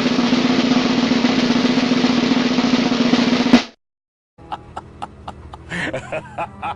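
Snare drum roll held steadily, ending in a single sharp hit about three and a half seconds in. After a brief silence, a quick, even series of clicks begins.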